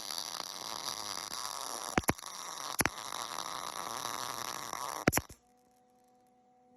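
Gas-shielded MIG welding arc crackling steadily while a nut is welded onto a broken stud, with a few sharp pops. The arc cuts off suddenly about five seconds in.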